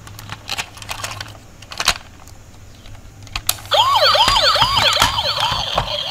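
Plastic clicks and taps as a toy police car is handled, then about two-thirds of the way in its electronic siren switches on: a loud warbling tone that swoops up and down about two and a half times a second.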